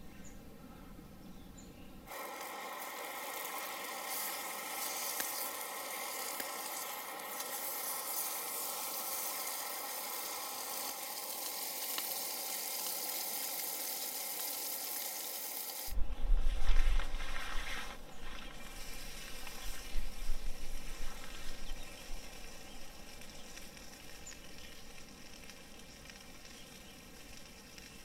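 Sausage patties sizzling steadily in a cast-iron skillet, starting about two seconds in. The sizzle cuts off suddenly about halfway through and gives way to several seconds of loud, low rumbling bumps, then quieter outdoor ambience.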